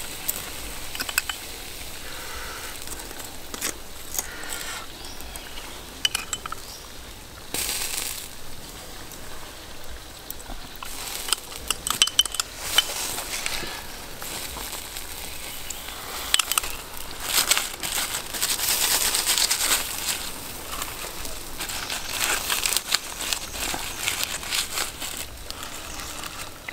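Pork ribs sizzling and crackling on a wire grill over charcoal embers, with many small pops and a few light clicks as a plastic spoon bastes the meat. The sizzle grows louder and busier a little past the middle.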